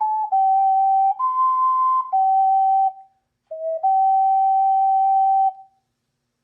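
Ocarina playing a slow melody one clear note at a time, the phrase closing on a long held note that stops about five and a half seconds in.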